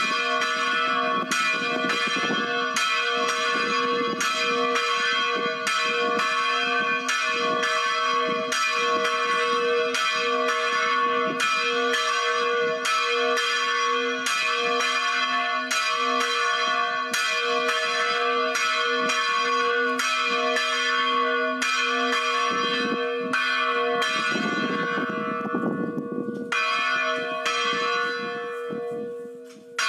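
Church bells ringing a fast, steady peal, about two strokes a second, each stroke hanging on in a long ring; the ringing dies away near the end.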